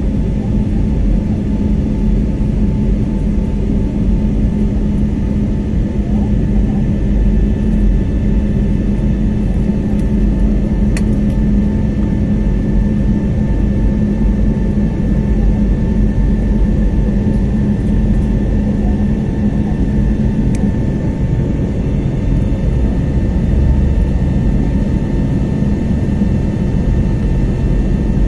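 Steady cabin noise of an airliner climbing after take-off: an even engine drone and rushing air with a steady low hum, heard from inside the cabin.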